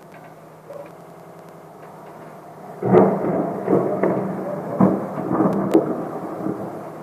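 Thunder: a loud clap about three seconds in, rolling on with several sharper cracks for about three seconds, then fading, over a steady low hum.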